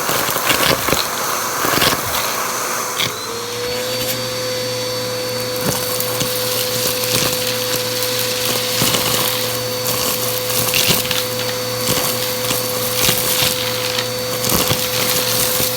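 Vacuum cleaner running, its motor whine rising and settling to a steady pitch about three seconds in, with rapid crackling and clicking as crunchy debris is sucked up.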